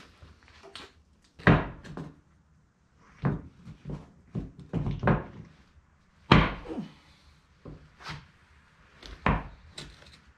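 Irregular knocks and thuds of a metal sand-casting flask being handled and lifted apart to break out a fresh aluminum casting, the loudest knocks about a second and a half in and again about six seconds in.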